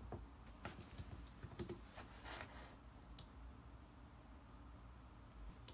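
Faint clicking of a computer mouse and keyboard, several separate clicks in the first three seconds over a low room hum.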